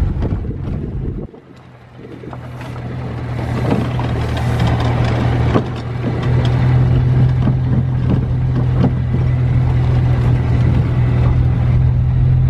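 A vehicle's engine running on the road with a steady drone under road and wind noise. The sound drops away suddenly just over a second in, then builds back up over the next few seconds.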